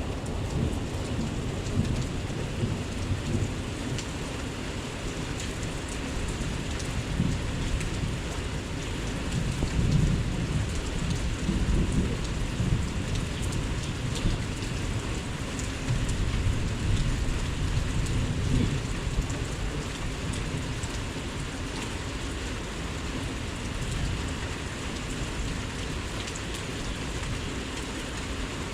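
Heavy rain pouring steadily, with low rumbles swelling twice: about a third of the way in and again a little past halfway.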